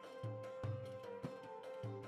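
Quiet background music with a low note repeating about twice a second under soft held tones.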